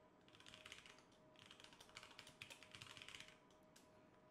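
Computer keyboard typing: two quick runs of soft keystrokes, a password typed and then retyped to confirm it, stopping a little after three seconds in.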